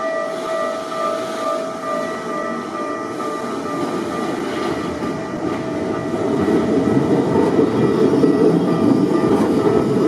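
Keikyu 2100-series electric train approaching and passing close by, its running noise growing to a loud rumble from about six seconds in. A level-crossing warning bell rings steadily through the approach.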